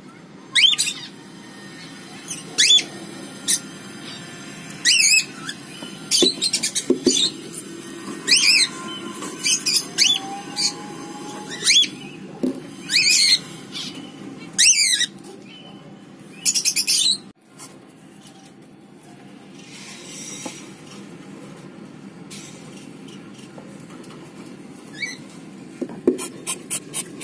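Cockatiel chicks giving repeated short, high-pitched calls, about a dozen and some in quick clusters, which stop about two-thirds of the way through. A quieter stretch of faint scraping follows.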